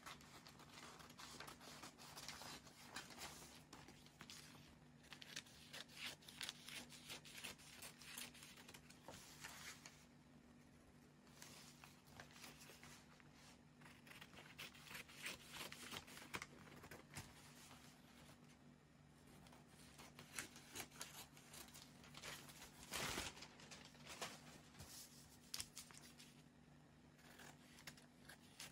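Scissors cutting out a paper pattern piece: faint runs of snips and paper rustling, broken by short pauses, with one louder rustle late on.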